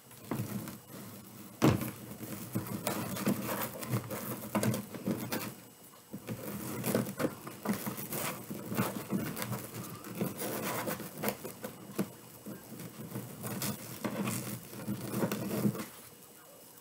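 Wreath mesh with gold stripes rustling and crinkling as hands scrunch a cut strip of it, in an irregular run of small crackles that stops near the end.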